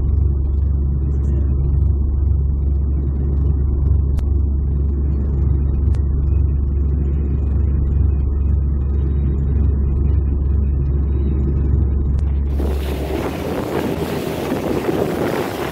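Steady low drone of an aircraft's engines heard inside the cabin. About three seconds before the end it cuts to the rush of wind on the microphone and water spray from an aluminium boat running fast over choppy river water.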